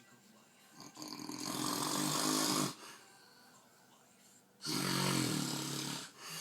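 A man snoring in his sleep: two long snores, the first swelling in about a second in and the second about four and a half seconds in, each lasting around a second and a half.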